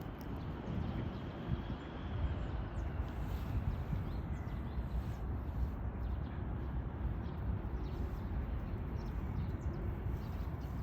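A dog tearing and chewing at a pine cone with its teeth, with faint cracks and clicks of the scales, over a steady low rumble.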